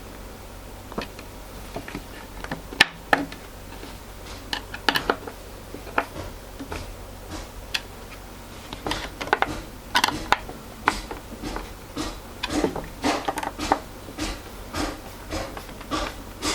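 A hand screwdriver tightening screws into wood to fasten the clips of a stool top: an irregular run of clicks, scrapes and small knocks that come thicker in the second half, over a faint low hum.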